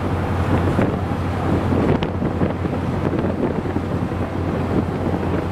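Wind buffeting the microphone on the deck of a ferry under way, over the steady low hum of the ship's engines.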